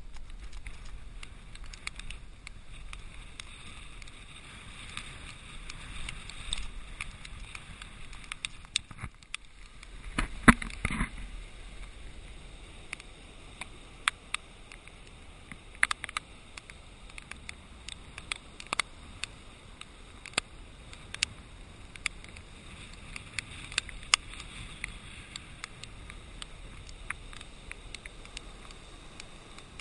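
Storm surf and wind at the water's edge, picked up by a GoPro HD camera: a steady rushing noise with frequent sharp clicks and knocks on the camera, and a louder rush about ten seconds in.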